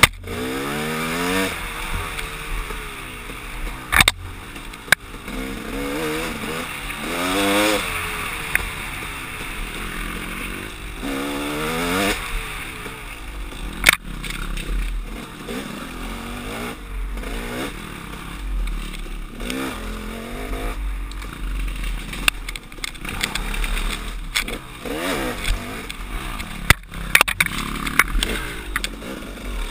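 KTM dirt bike engine revving up and falling off again and again as the bike is ridden over a rough trail, with several sharp knocks along the way.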